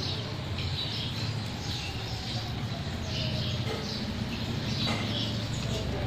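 Green parakeets chirping and chattering softly to each other: short, high squeaky calls repeating about twice a second.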